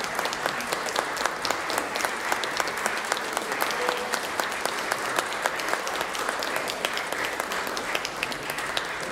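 Concert hall audience applauding: steady, dense clapping that eases off a little near the end.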